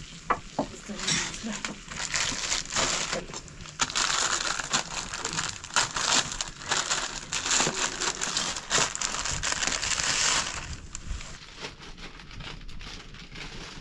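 Noodles cooking in a pan of water boiling hard over an open wood fire: a bubbling hiss full of small crackling clicks from the boil and the burning wood. It dies down about ten seconds in.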